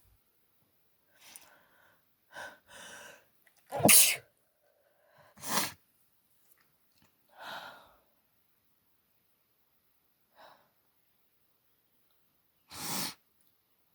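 A woman sneezing in an allergy fit: breathy catching inhales, then two sharp sneezes about four and five and a half seconds in, the first the loudest. A breath follows, and another sharp burst comes near the end.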